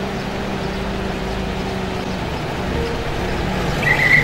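WWII-era military jeeps driving slowly toward the listener, their engines running steadily and growing louder as they come near. A high, steady tone starts near the end.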